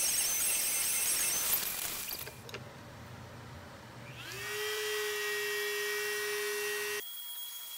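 StepCraft D600 CNC router spindle: a high-pitched whine over a rushing noise winds down and stops about a second and a half in. About four seconds in the spindle spins up again with a rising whine and settles into a steady tone, which cuts off suddenly near the end.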